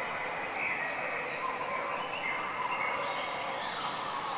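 Steady forest ambience: an even hiss like insects, with a few faint short whistled calls over it.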